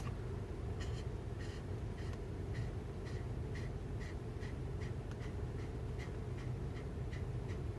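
A Pomeranian's quick, faint breaths, about two or three a second and slightly uneven, over a low steady hum.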